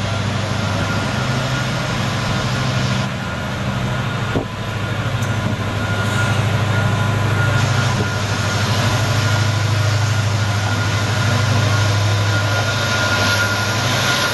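WDP-4B diesel-electric locomotive's EMD 16-cylinder two-stroke engine running under power as it approaches hauling a passenger train, a deep steady drone. There is a short dip about three seconds in and a single click about four seconds in.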